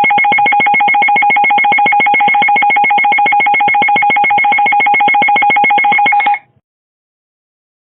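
Electronic emergency-alert attention tone: two steady high pitches pulsing rapidly together for about six seconds, then cutting off abruptly.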